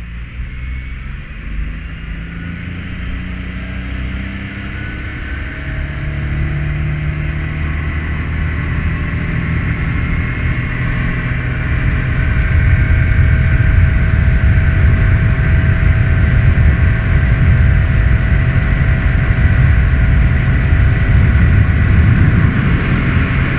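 A small boat's outboard motor running under way, its pitch and level rising over the first several seconds and then holding steady at cruising speed.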